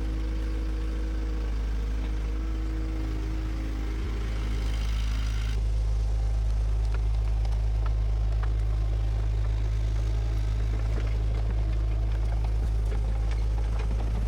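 Bulldozer's diesel engine running with a steady low drone. About five and a half seconds in, the higher mechanical tones over it drop away suddenly.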